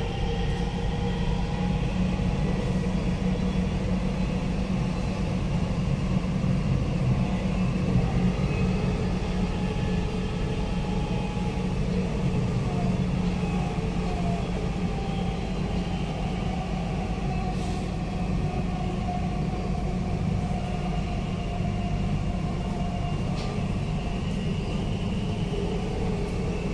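Dubai Metro train running at speed, heard from inside the carriage: a steady rumble of the wheels on the rails with an even hum.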